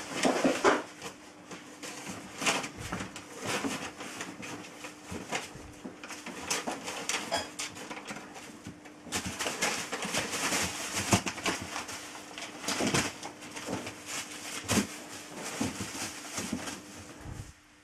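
Plastic bags rustling and crinkling irregularly as kittens scramble over and through them, densest in a stretch about halfway through.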